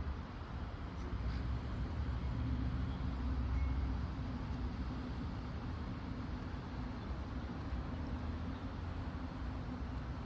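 Storm wind blowing across the microphone, a steady low rumble that swells a couple of seconds in and then holds.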